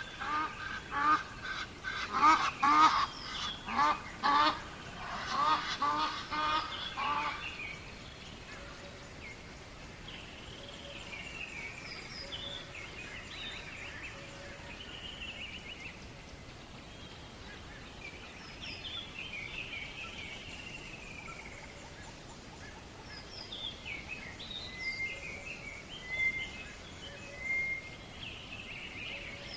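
Jungle birds calling: a loud run of repeated calls, about three a second, during the first seven seconds or so. After that, quieter whistled and twittering songbird phrases rise and fall over a steady background hiss.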